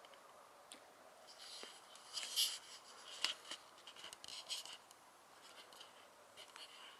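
Faint scratchy rustling in several short spells, loudest about two and a half seconds in, with a sharp click about three seconds in: footsteps on dry leaf litter. A faint steady high tone runs underneath.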